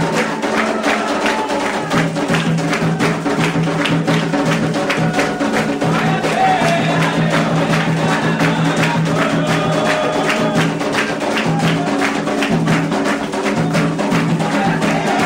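Candomblé ritual percussion: atabaque hand drums and a struck bell playing a fast, continuous rhythm.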